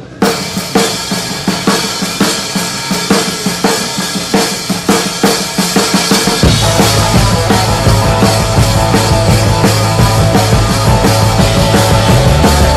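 Rock music: a drum beat alone for about six seconds, then the rest of the band comes in with a heavy low end.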